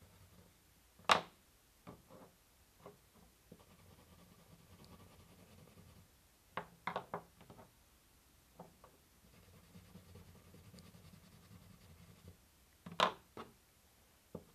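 Wax crayon scratching faintly on paper as a picture is coloured in, broken by sharp clicks and taps of crayons being put down and picked up on the table: a loud one about a second in, a quick cluster midway and another loud one near the end.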